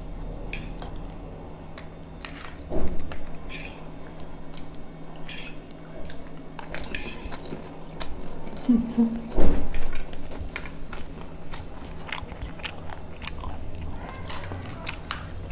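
People chewing and biting food, puchka and pasta, with scattered short crisp clicks and crunches and a louder knock about nine and a half seconds in, over a steady low hum.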